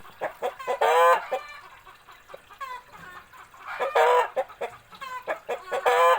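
Chickens, a Bangkok gamecock and a hen, clucking repeatedly. Three loud, short squawking calls come about a second in, at about four seconds, and near the end.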